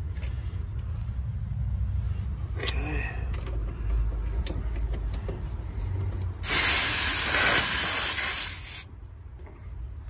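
R-410A refrigerant hissing sharply out of an AC condensing unit's service port for about two seconds as a wireless pressure probe is threaded onto the valve, then cutting off suddenly.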